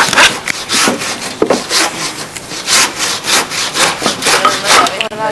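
A hand tool working wood in rhythmic rasping strokes, about three a second.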